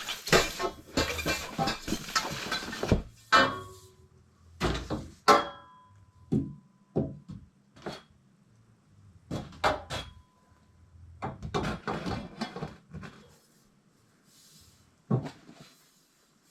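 Clattering, clinking and rustling of tools and plumbing parts being handled and rummaged through. A dense run of rattling fills the first three seconds, followed by separate knocks and short clatters.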